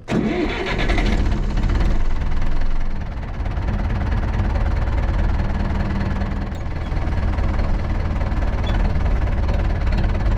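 Vintage Zetor tractor diesel engine running steadily with a deep, dense chugging.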